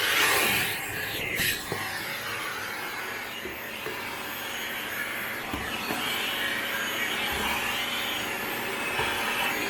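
Panasonic paper-bag canister vacuum cleaner running with its narrow nozzle sucking along the floor edges, a steady rushing hiss with a faint motor hum and small rises and scrapes as the nozzle moves.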